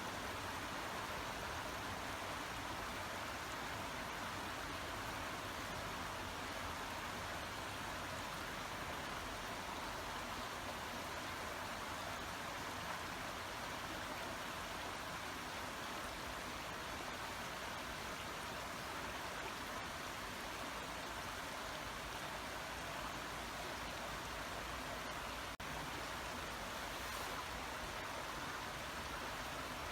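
Babbling brook: water running over stones in a steady, even rush, with a momentary dropout about three-quarters of the way through.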